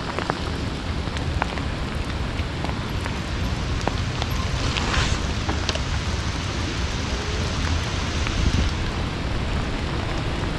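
Steady rain hissing, with a low flickering rumble of wind on the microphone from riding an e-bike through it. A brief louder hiss rises about five seconds in.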